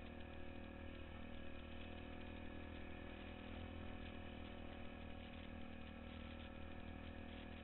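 ATV engine running at a steady speed as the quad rides through packed snow.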